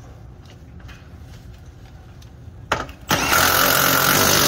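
Milwaukee FUEL cordless power tool tightening the lower rear shock bolt. It gives a short blip, then runs loud and steady from about three seconds in.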